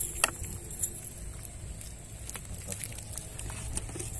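Scattered light clicks and taps as fish are picked out of a cast net and dropped into a plastic bucket, the sharpest click just after the start, over a steady low rumble.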